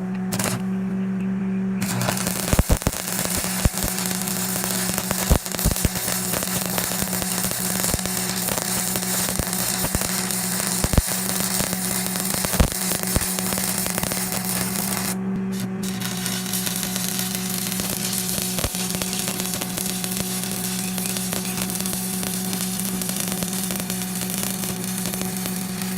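Electric arc welder at work: a steady crackling sizzle from the arc over the machine's steady hum, with a few sharp pops. The arc starts about two seconds in, stops briefly about halfway, then starts again.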